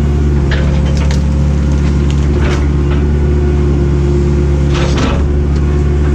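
Cat 307B excavator's diesel engine running steadily under load, with scattered sharp cracks and snaps as the machine breaks through scrub and branches. A longer crunching noise comes about five seconds in.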